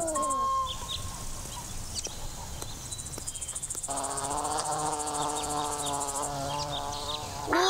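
Cartoon insect sound effects: a rapid, high, pulsing chirr like a cricket, and from about four seconds in a steady buzzing hum that runs on to the end.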